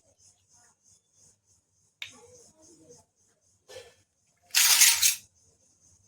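Small plastic toy kitchen pieces and packaging being handled. There is a click about two seconds in and another just before four seconds, then a loud, noisy rustle lasting under a second about five seconds in.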